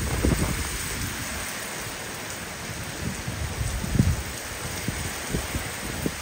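Heavy rain pouring down steadily, with irregular gusts of wind buffeting the microphone in low rumbles, the strongest about four seconds in.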